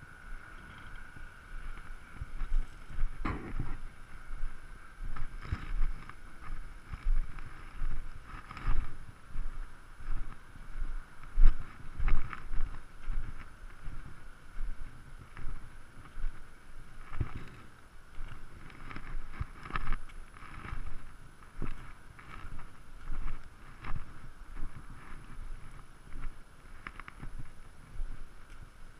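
Footsteps crunching on gravel at an uneven walking pace, with wind buffeting the microphone.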